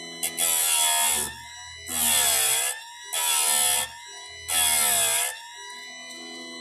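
Electric chainsaw chain sharpener's grinding-wheel motor whining steadily, with four short grinding passes of under a second each as the wheel is brought down onto chain teeth; the motor's pitch sags under load during each pass.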